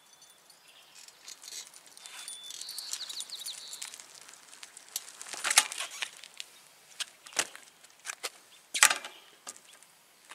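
Bicycle tyres rolling on wet asphalt as the cruiser approaches, followed by a few sharp separate clicks and knocks as it stops and is set on its kickstand.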